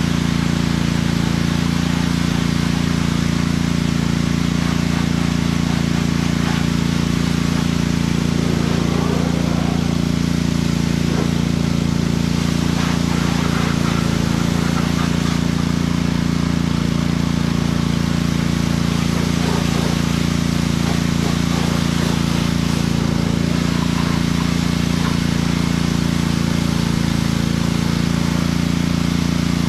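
Pressure washer running steadily: a constant low motor hum under the hiss of the water jet from the wand rinsing down a side-by-side.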